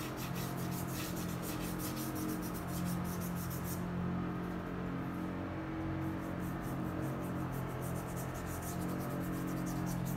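A paintbrush scrubbing across a painting board in quick, rapidly repeated horizontal strokes, pausing for about two seconds partway through, over a steady low machine hum.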